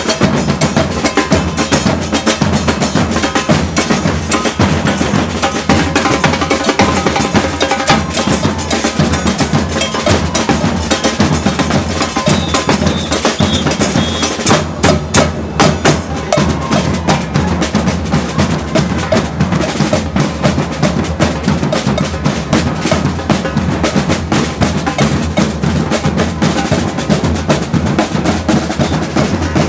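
Street percussion band drumming a dense, steady rhythm with sticks on bass drums and snare-type drums, with a cowbell in the mix.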